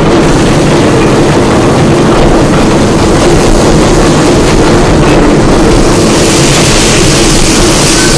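A concrete pipe-making line running: the hanging roller pipe machine and its feed conveyor make a loud, steady mechanical din with a deep rumble. A higher hiss builds in about six seconds in.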